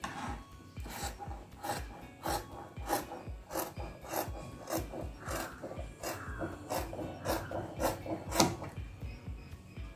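Dressmaking scissors cutting through cloth in a steady run of snips, about one or two a second, the last and loudest about a second and a half before the end. Faint background music underneath.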